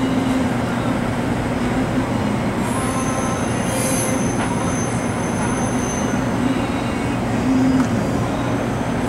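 Loaded CSX coal train's hopper cars rolling past at a crossing, a steady rumble of steel wheels on rail. A thin, high-pitched wheel squeal comes in from about three to six seconds in.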